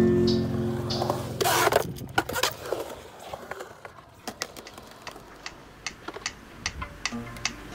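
Skateboard wheels rolling on concrete, with a short scrape about a second and a half in and scattered clicks and clacks of boards through the rest. Acoustic guitar music fades out at the start.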